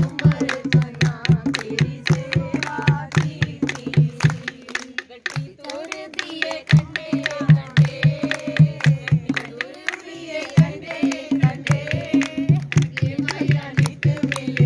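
Group of women singing Punjabi tappe folk verses to a dholak barrel drum and hand claps. The drum beat drops out twice, for about two seconds roughly a third of the way in and briefly again after the middle, while the singing carries on.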